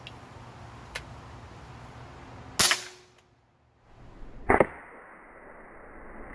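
A large-bore .357 airgun firing: a loud, sharp shot about two and a half seconds in, then, about two seconds later, a second loud double crack, likely the explosive slug going off. A faint click comes about a second in.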